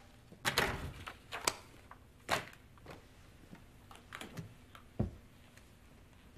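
Scattered soft clicks and knocks of a man moving in a leather office chair at his desk, ending in a low thump about five seconds in as he swings his feet up onto the desk.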